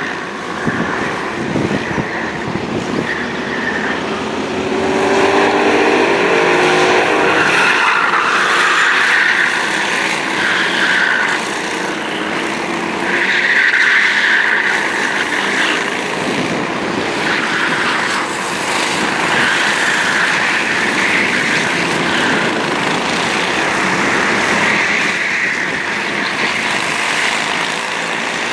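Engines of several racing karts running at race pace as they lap the track, rising and falling in pitch as they accelerate and lift, and loudest as the pack passes closest.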